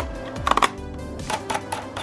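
Background music: a beat with deep falling bass notes and sharp percussive hits, loudest about half a second in.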